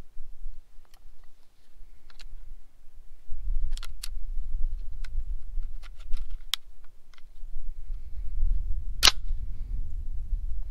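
M1 Garand being loaded: light metallic clicks and rattles as an en-bloc clip of cartridges is handled and seated in the open receiver, then one loud sharp clack about nine seconds in as the bolt runs forward to close the action. A low rumble of wind on the microphone comes and goes underneath.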